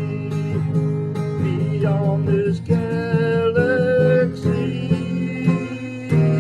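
Acoustic guitar playing an instrumental passage of a country-style song, with some notes bending in pitch.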